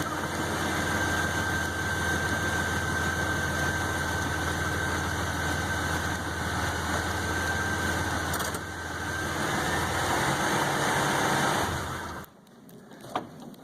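Pickup truck engine idling steadily, with a thin steady whine over it for much of the time; the sound cuts off abruptly near the end.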